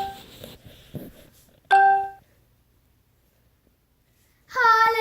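A short chime, one clear bell-like note, sounds about two seconds in, after the fading tail of another at the very start. Near the end a child begins singing a long held note.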